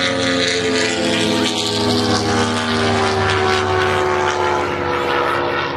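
Single-engine piston propeller airplane flying past, its engine drone steady while the pitch falls slowly as it goes by.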